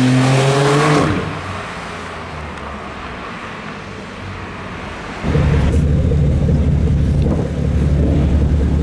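Porsche 911 Turbo (991) twin-turbo flat-six accelerating away, its pitch dropping about a second in, then fading as the car pulls off. About five seconds in, the sound switches abruptly to a BMW 1M Coupé's twin-turbo inline-six running at low revs with a loud, steady, deep exhaust note.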